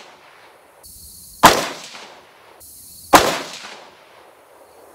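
Two rifle shots from an AR-15 with an 18-inch .223 Wylde match upper, about a second and a half apart, each a sharp crack with a fading echo. They are slow aimed fire for a group.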